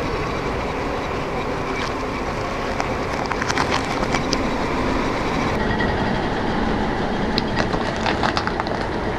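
A car tyre rolling slowly over a bunch of overripe bananas and crushing them, over the steady noise of the car. Clusters of crackles and squishes come about three seconds in and again near the end as the fruit is squashed flat.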